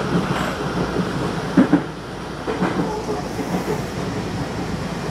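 Tobu 30000 series electric train running, heard from inside the driver's cab: a steady rumble of wheels on rail, with two sharp clacks in quick succession about a second and a half in as the wheels pass over a rail joint.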